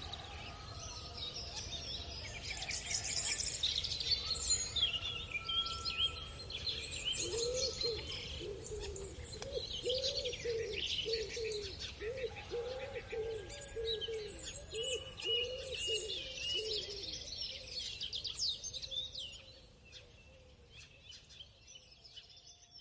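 Birds singing and chirping in a morning chorus, several calls overlapping, with a run of low repeated calls, a little more than one a second, through the middle. The ambience fades down near the end.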